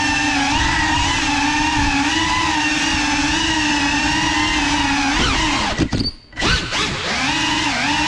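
GEPRC Cinelog35 FPV drone's motors and propellers whining steadily, the pitch wavering with the throttle. About five and a half seconds in the whine slides down and nearly cuts out for half a second, then spins back up.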